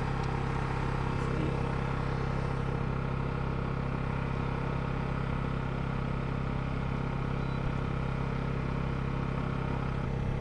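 An engine running steadily at an even speed: a constant low hum with no change in pitch.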